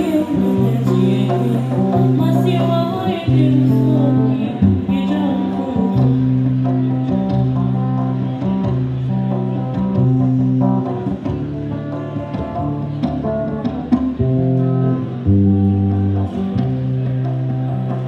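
Live music from an electric guitar with singing, over a bass line of held low notes that change about once a second.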